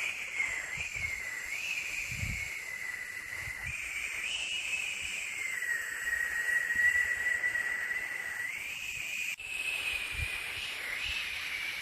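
White noise for lulling a baby to sleep: a steady hiss with a high, gently wavering whistle running through it. The sound shifts abruptly twice, with a brief drop about nine seconds in, like a join in a looped recording.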